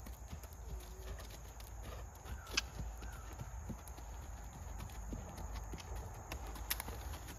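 A horse's hooves striking a dirt and gravel track at a trot, a steady run of hoofbeats with a couple of sharper clicks, over a low rumble.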